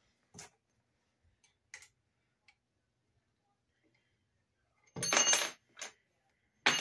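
Allen wrench and screw working into a roller racer's tubular frame: a few faint clicks, then about five seconds in a louder metallic clatter with a ringing edge, a short clink just after, and another clink at the very end.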